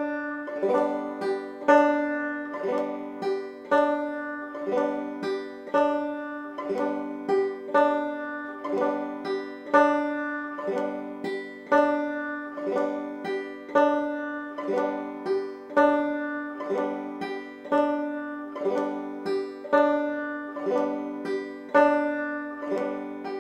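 Five-string banjo in open G tuning played clawhammer style at a slow, even tempo: the basic frailing strum on the first string, a struck note, a brush and the thumbed fifth string repeating in a steady rhythm.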